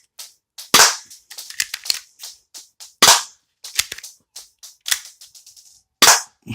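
Airsoft pistol fired three times, a sharp crack every two and a half seconds or so, with smaller clicks and clacks of the slide being worked and the gun handled between shots.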